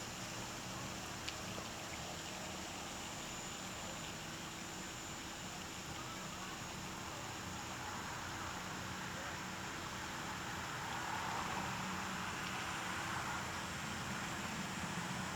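Steady white-noise hiss with a faint low hum beneath it, swelling slightly about ten seconds in; a single small click about a second in.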